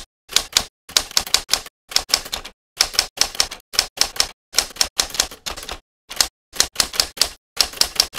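Manual typewriter keys clacking in quick bursts of a few strokes each, with short pauses between the bursts.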